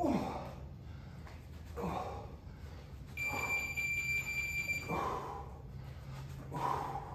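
A man breathing hard in forceful exhalations, roughly one every second and a half to two seconds, while swinging a kettlebell. About three seconds in, a single steady electronic beep sounds for under two seconds.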